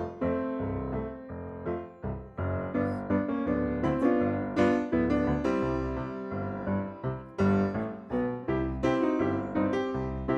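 Background music: solo piano playing a flowing melody with chords, no animal sounds heard above it.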